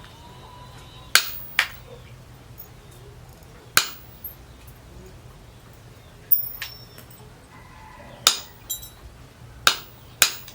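Seven sharp metal-on-metal clinks at irregular intervals, some in quick pairs, several leaving a brief high ringing.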